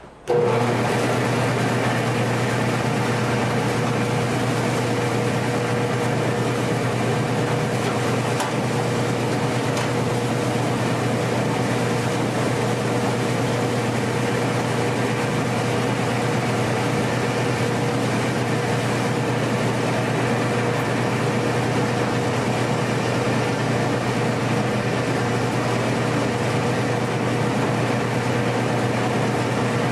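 Mini rice mill machinery running steadily: a constant drone with a steady whine over it, coming on abruptly just after the start.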